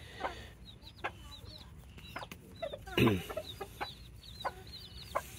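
Gamefowl chickens clucking: short single clucks every second or so, with one longer falling call about three seconds in. Faint high chirps run behind them.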